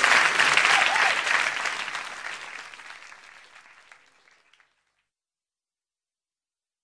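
Crowd applauding, with a few short cheers near the start, fading out over about four and a half seconds.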